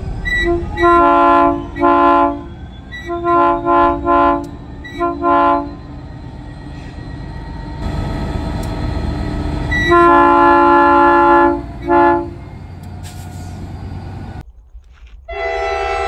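Diesel freight locomotive's multi-note air horn sounding a string of short blasts, then a long blast and a short one, over the rumble of the passing train. Near the end a second train's horn begins a long, lower chord.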